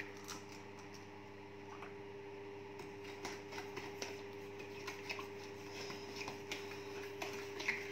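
Metal fork beating an egg with sugar and melted butter in a plastic tub: light, quick clicks and taps of the fork against the plastic, thickening about three seconds in. A steady low hum runs underneath.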